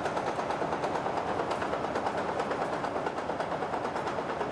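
Sany SY215 hydraulic excavator running with a steady engine and hydraulic noise while its basic functions are worked through on its first run after filling with hydraulic oil, the oil being spread through the system.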